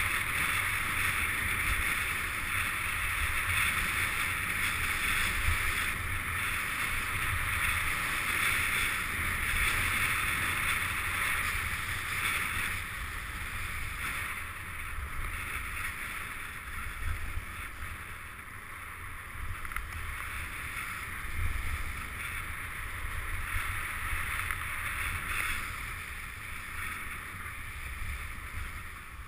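Steady rush of wind over the microphone mixed with skis hissing and scraping on groomed snow during a downhill ski run. It gets a little quieter about halfway through.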